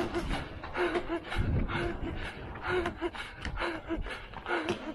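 Runner breathing hard at race pace, with a short voiced gasp about every half second. Quick footsteps land on paving in between the breaths.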